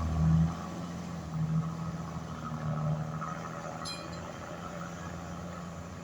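Heavy diesel truck engine running under load with a steady low drone. It swells three times in the first three seconds, then slowly fades.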